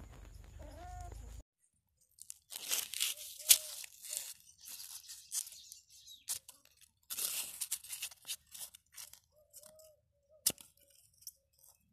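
A kitten chewing and tearing at white crumbly pieces, in irregular bursts of crisp crunching with a few brief squeaks mixed in; the crunching starts a second or so after a short silence.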